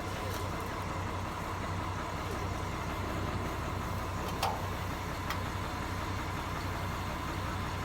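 Vehicle engine idling steadily, a low even hum, with two short clicks about halfway through.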